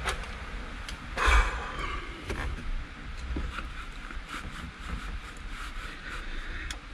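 Scattered light knocks and clicks of handling or movement, with one louder bump a little over a second in, over a low rumble.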